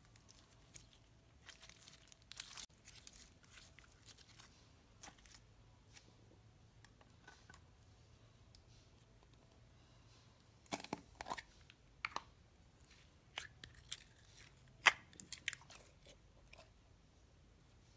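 Hands handling slime and plastic slime containers: faint scattered clicks and crackles of plastic and sticky slime, busiest in the last third, with one sharper click near the end.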